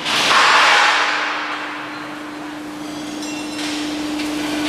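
Kruman CLS6016-NC hydraulic guillotine shear cutting 16 mm steel plate. A loud burst of metallic noise comes as the blade goes through, starting just after the beginning and fading over about a second and a half. Under it runs the machine's steady hydraulic hum.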